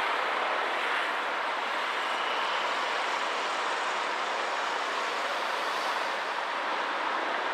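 Steady city street traffic noise: vehicles idling at a junction while cars pass across, with no single sound standing out.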